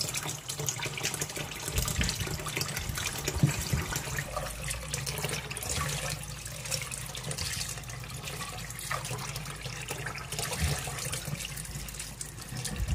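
Tap water running into a pot of rice in a stainless steel sink, with hands swishing and rubbing the rice in the water as it is washed. Occasional light knocks, the strongest about three and a half seconds in.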